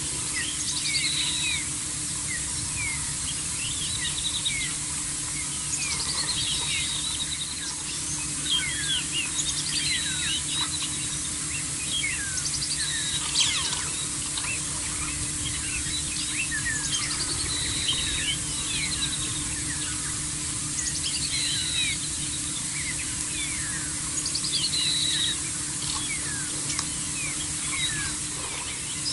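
Several wild birds calling: a busy mix of chirps and quick downward-sweeping whistles, one phrase recurring every few seconds, over a steady low hum.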